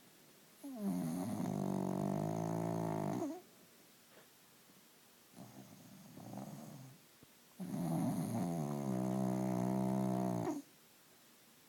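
Heavy snoring: two long, pitched snores of about three seconds each, several seconds apart, with softer breathing between them.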